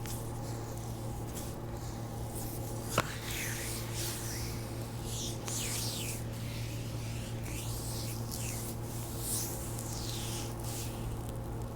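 Hands rubbing and working the skin of a bare foot close to wrist microphones, in soft repeated swishing strokes. One sharp pop about three seconds in, a joint releasing under mobilization. A low steady hum runs underneath.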